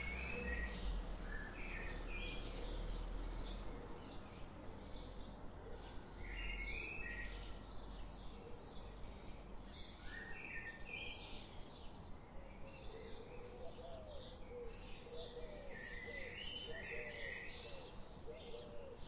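Woodland songbirds chirping and calling, many short, fairly faint notes throughout, over a low background rumble that is strongest in the first few seconds.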